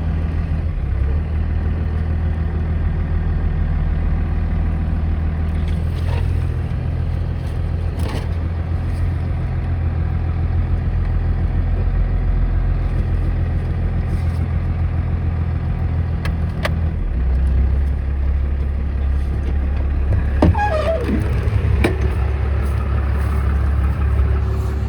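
A vehicle engine idling steadily close by, its pitch shifting slightly about six and again about seventeen seconds in, with a few sharp clicks over it.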